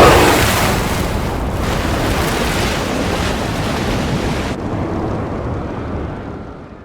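Film sound effect of a huge explosion: a blast at the very start decays into a long noisy rumble. The high hiss drops out about four and a half seconds in, and the rumble fades away at the end.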